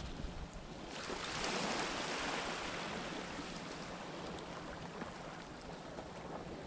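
Wind and the wash of the sea, swelling about a second in and slowly dying away, over a steady low rumble of wind on the microphone.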